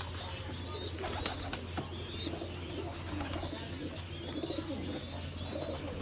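A flock of white doves cooing, several low wavering coos overlapping, with a few sharp clicks about a second in.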